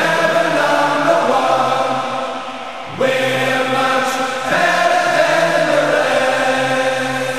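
Song music with a choir singing long held notes, no clear words; a new phrase comes in about three seconds in.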